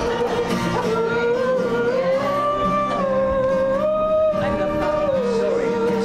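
A woman singing long held notes to acoustic guitar. The notes step up in pitch through the middle and settle back down near the end.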